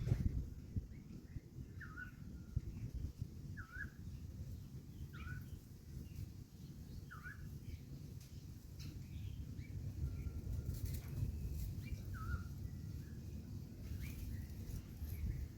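A bird calling: short chirps repeated about every one and a half to two seconds, with a pause in the middle, over a steady low rumble.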